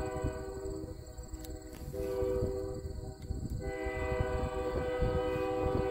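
A train, not yet in sight, sounding its multi-note chime: a long blast, a brief drop about a second in, then a long blast again with a higher note joining a little past the middle, over a low uneven rumble.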